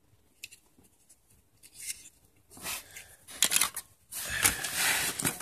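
Plastic bag rustling and crinkling as diecast toy cars are handled in it: a few short bursts about two and a half to four seconds in, then a longer, louder stretch of rustle near the end.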